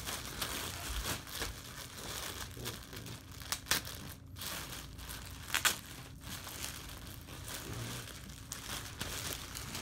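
Packaging crinkling and rustling as it is handled, with a few sharper crackles about a third and two thirds of the way through.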